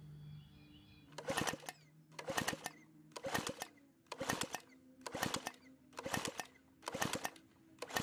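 Lawn mower engine cranked over by its recoil pull-starter, about once a second, seven or eight pulls, without firing. The spark plug is out and a compression gauge is fitted in its place: this is a compression test, and the engine builds about 114 psi, a healthy reading.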